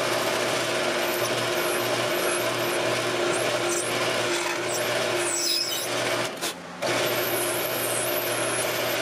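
Drill press running with its 1/8-inch bit drilling a pilot hole through a brass butt cap: a steady motor hum with thin, wavering high squeals from the bit cutting the metal. The sound dips briefly about two-thirds of the way through, then the drilling resumes.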